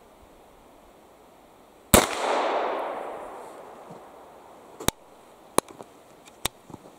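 A single rifle shot from a Remington Rolling Block sporting rifle firing a smokeless .44-40 round, a load that does not sound very powerful. It is a sharp report about two seconds in with a long echo that fades over about two seconds. It is followed by three short metallic clicks as the rolling-block action is worked open.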